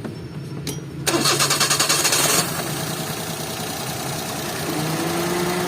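A 2011 Toyota Vitz engine is cranked by its starter for about a second and a half, fires about two and a half seconds in, and settles into running. This engine has been logging a cylinder-3 misfire code (P0303).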